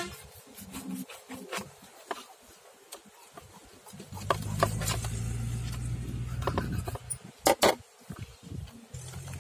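Knife scraping and cutting a fish in an aluminium basin, with light clicks and scrapes. About four seconds in, a low steady hum comes in. Shortly before the end, two sharp metallic knocks ring out as the knife is put down on a metal plate.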